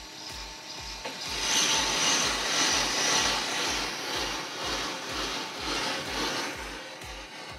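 BL505 brake lathe cutting a brake rotor: the bits scrape steadily across the spinning disc face, with the silencing band clamped on the rotor. The cutting hiss builds about a second in and eases off near the end, over a low thump about two to three times a second.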